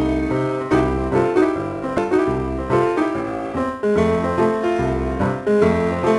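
Background music led by piano or electric keyboard, playing a bouncy melody over a bass note that repeats in an even rhythm.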